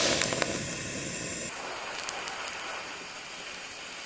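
TIG welding arc on mild steel from a 200-amp AC/DC inverter TIG welder, a steady hiss that drops a little in level and changes tone about a second and a half in.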